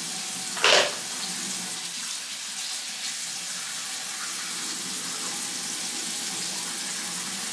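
Tap water running steadily into a sink, with a brief louder splash about a second in.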